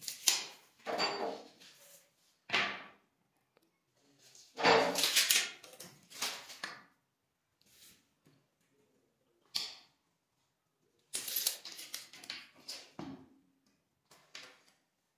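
Steel tape measure being handled: short rattling zips and clacks as the blade is pulled out and retracted against the case. About a dozen separate bursts come with silent gaps between them.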